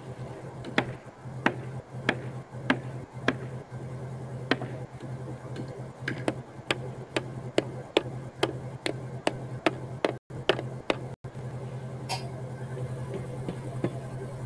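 Even ticking, sharp clicks just under two a second, over a steady low hum.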